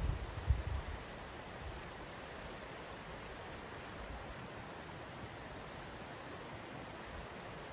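Steady rushing of a wide creek flowing over a shallow riffle. A few low wind gusts buffet the microphone in the first second.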